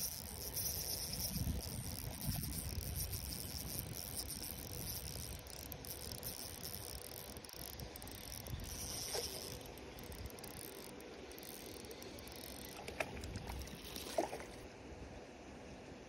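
Spinning reel being cranked steadily on a lure retrieve, a fine high whirr that stops about fifteen seconds in as the retrieve ends. Wind rumbles on the microphone early on, and a couple of sharp clicks come near the end.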